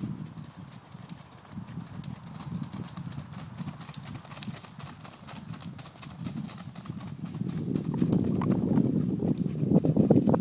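Hoofbeats of a ridden grey pony on a gravel road: an uneven clip-clop of hooves on loose stones, sharpest as it passes close about halfway through, with a low rumble growing louder near the end.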